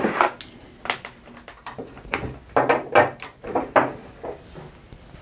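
Handling clatter of test leads: a string of irregular clicks and knocks as multimeter leads are plugged in and clipped onto the terminals of a large tubular power resistor lying on the bench, dying away about four and a half seconds in.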